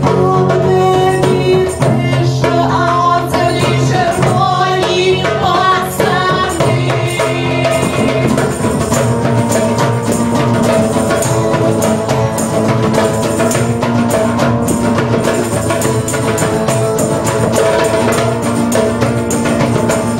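A live acoustic folk band plays: a woman sings over acoustic guitar, a hand drum and a tambourine. The singing is clearest in the first eight seconds. After that the drum and tambourine beat is busier.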